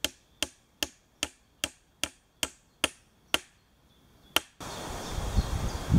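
Steady hammer blows driving a nail into a wooden log chair frame, about two and a half strikes a second, then one last blow after a short pause. About four and a half seconds in, it gives way to a steady outdoor rumble with faint bird chirps.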